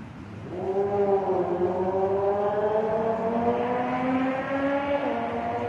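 A motor vehicle's engine accelerating, its pitch dipping slightly and then rising steadily over several seconds.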